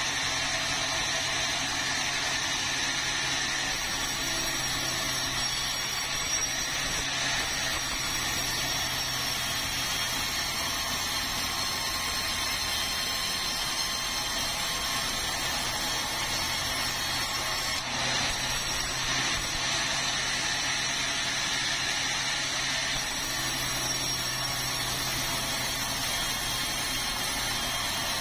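Sawmill bandsaw running and ripping a large beam of red meranti hardwood: a steady high sawing noise from the blade in the wood over a low, even hum from the machine.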